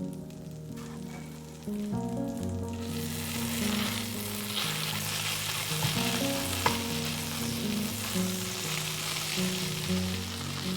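Food frying in a hot pan: a sizzle that starts suddenly about three seconds in and carries on, with one sharp utensil click in the middle. Soft background music plays underneath.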